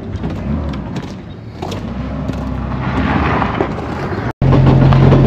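Four-wheel-drive truck's engine running with a low, steady rumble as it tows a boat trailer over gravel, with scattered knocks and rattles. Near the end the sound cuts out for an instant and returns as a louder, steady low engine drone.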